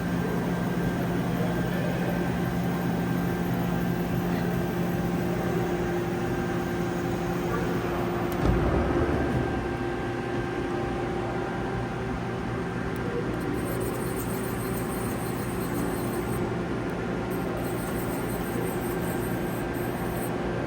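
Hurco TM6H CNC lathe running with a steady mechanical hum carrying several held tones. About eight seconds in there is a short thump, and the hum's tone shifts after it.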